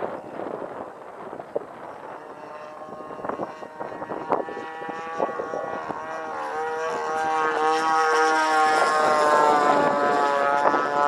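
Radio-controlled Sbach 342 model aerobatic plane's motor and propeller droning overhead, its pitch stepping up and down as it manoeuvres. It is faint at first under wind on the microphone and grows louder through the second half as the plane comes closer.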